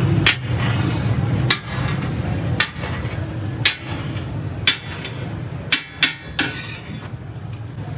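Heavy steel spatula clanking against a flat iron griddle (tawa) as pav bhaji is worked, sharp metallic strikes about once a second, then three in quick succession near the end. A steady low hum runs underneath.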